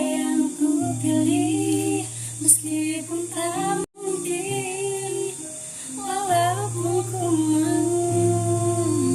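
A woman singing a slow, gliding melody over long, steady low accompanying notes. The sound cuts out for a moment about four seconds in, then carries on.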